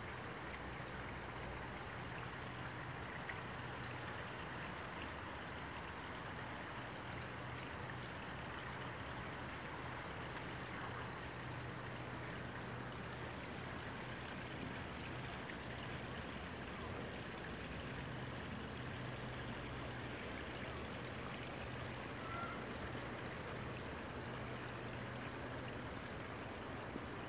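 Steady running water, a stream or trickle, with a faint low hum underneath.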